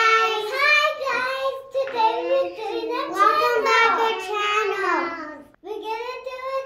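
Young children singing together in high voices, with held notes and a short break about five and a half seconds in.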